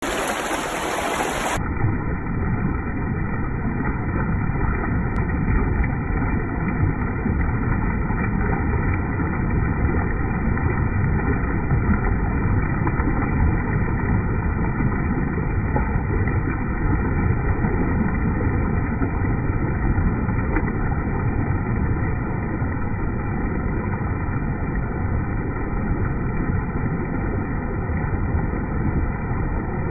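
Turbulent floodwater rushing and churning just below a dam spillway, a loud steady rush.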